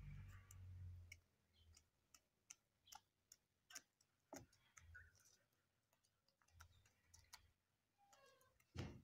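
Turkeys pecking at sprouted wheat grass in a plastic crate: faint, irregular clicks and ticks of beaks snipping and tearing the grass, with a dull thump near the end.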